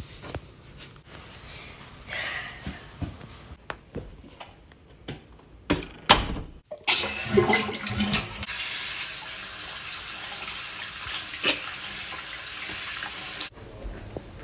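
A few scattered knocks and clicks, then water rushing steadily for about five seconds before cutting off abruptly.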